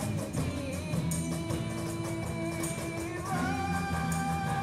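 Live acoustic band playing: strummed acoustic guitars over a cajon beat with jingling percussion, and long held melody notes, with new ones coming in about three seconds in.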